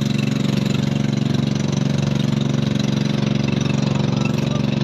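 Small motorboat's engine running steadily under way, heard from on board, with a fast even chug.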